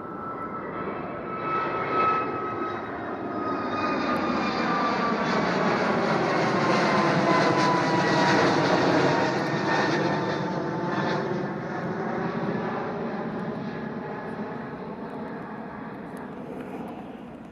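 Airliner's engines as the aircraft passes by: the noise swells to its loudest about halfway through, then fades, and a whine in it slides steadily down in pitch as the aircraft goes past.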